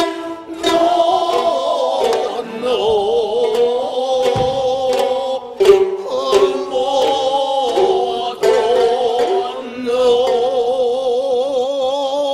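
Bunraku's gidayū accompaniment: chanted singing with long, wavering held notes, punctuated by sharp plucked shamisen strokes.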